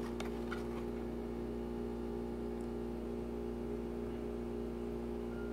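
Steady background hum made of several constant tones, like a running appliance or fan, with a few faint clicks in the first half second as a cardboard box is handled.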